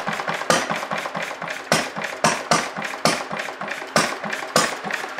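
Single-cylinder Briggs & Stratton engine with a see-through glass cylinder head running rough: loud, sharp firing pops come unevenly, about two to three strong ones a second, with weaker pops between them.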